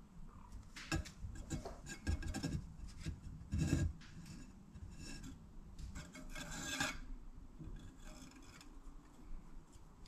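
Hands handling a 10-inch carbon-fibre FPV drone on a wooden tabletop: irregular rubbing and scraping of frame, straps and propeller, with a few brief knocks.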